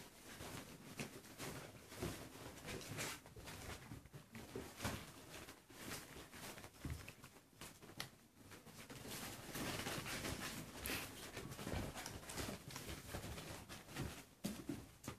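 Puppies scrambling over and through a fabric play tunnel: faint, irregular rustles, scuffs and pattering of paws.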